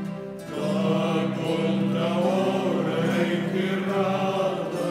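Mixed choir singing, with a louder, fuller phrase coming in about half a second in.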